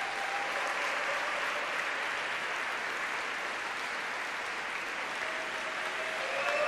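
Arena audience applauding steadily for ice dancers taking their bows after a free dance.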